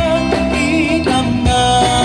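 Live amplified busking music: an acoustic-electric guitar accompanying a male singer's vibrato melody through a PA speaker.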